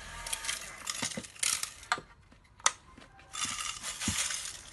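Small metal screws rattling and clinking inside a FUMA FA-560 automatic screw feeder, in short bursts with sharp clicks. A longer rattle comes near the end as the machine is tilted and the screws shift inside it.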